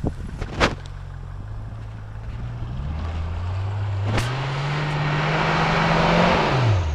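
An off-road 4x4's engine revving up under load, its pitch climbing steadily for a few seconds before the revs drop sharply near the end, with a hiss building as it peaks. Two sharp knocks, one just after the start and one about four seconds in.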